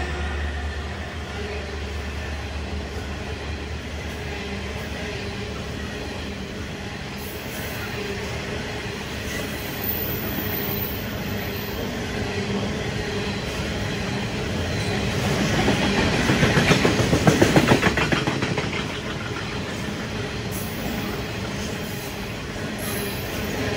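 Grain hopper wagons of a freight train rolling past: a steady rumble of steel wheels on rail. About two-thirds of the way in it swells into a louder stretch of rapid clickety-clack, then eases back to the rumble.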